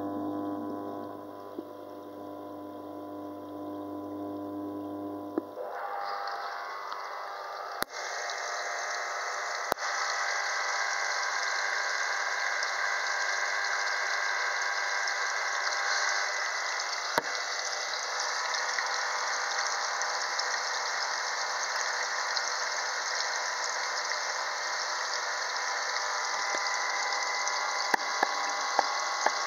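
Aquarium equipment running steadily: an electric hum for the first five seconds or so, then a steady rush of moving water, typical of a reef tank's circulation pump and return flow, that starts abruptly and carries on, with a few faint clicks.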